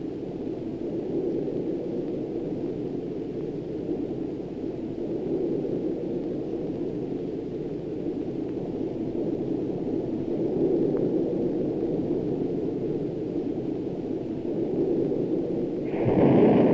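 Steady low roar of aircraft engines in flight. A louder, brighter rush starts near the end.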